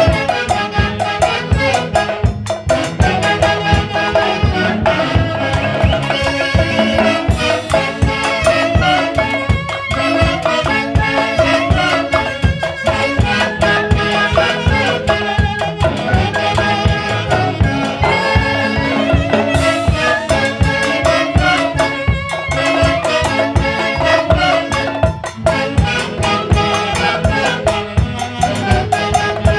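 Live music from a Huancayo orquesta: wind instruments such as clarinets and brass play the melody over a steady drum and percussion beat.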